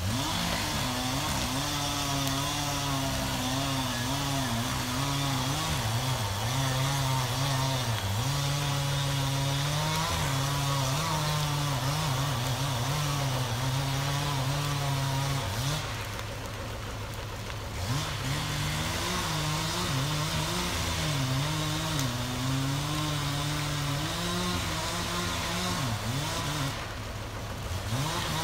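Chainsaw running under load, cutting logs, its pitch wavering up and down with the throttle and easing off briefly about halfway through.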